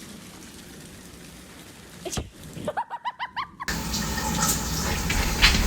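A quick run of short, high squeaky chirps, then, a little past halfway, sudden loud water splashing and sloshing with many small slaps.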